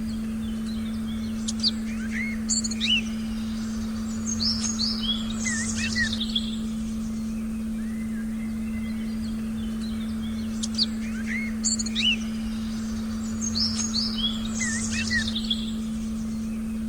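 Forest birdsong: a cluster of chirps and whistling calls that recurs about nine seconds later in almost the same pattern, like a looped recording. Under it runs a steady, unbroken low tone.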